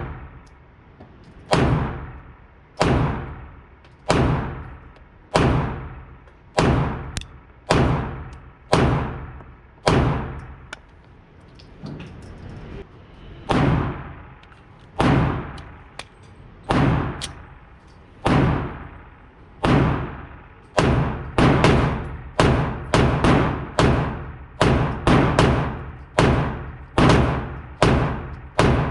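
AR-15 rifle firing single semi-automatic shots, each ending in a short echoing tail. The shots come about a second apart at first, pause briefly near the middle, then quicken to roughly two a second in the second half.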